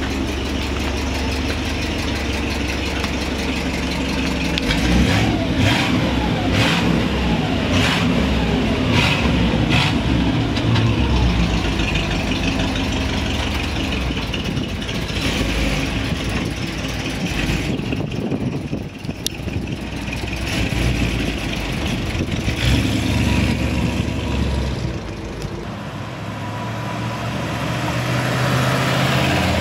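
1957 Chevrolet Bel Air's 283 cubic-inch 'Power Pack' V8 running through its dual exhaust, revved a few times and then driving, louder near the end as the car comes close.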